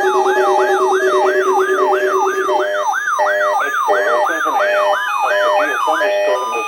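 Electronic warning siren sweeping up and down rapidly, about three times a second, over a steady low tone that cuts off about two and a half seconds in. From then on a run of short stepped electronic tones sounds along with the siren, which stops shortly before the end. It is the alert sound opening a severe weather warning broadcast.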